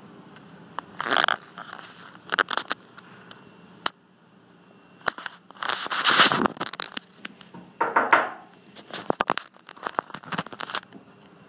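Handling noise from a handheld camera or phone: rustling and scraping against the microphone in several short bursts, the loudest about six seconds in, with a run of sharp clicks near the end.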